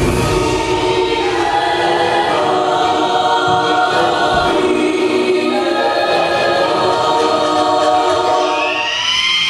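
Choral music: a choir singing long held chords that shift every second or two, with a rising sweep near the end.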